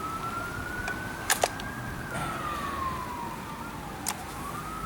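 Emergency-vehicle siren wailing, its pitch slowly rising, falling and rising again, with a few sharp clicks, two of them about a second and a half in and one near the end.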